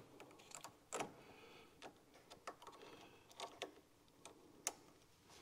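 Faint, scattered clicks and small knocks of pliers and a hose clamp as a rubber hose is fitted onto the vacuum pump, about half a dozen in all.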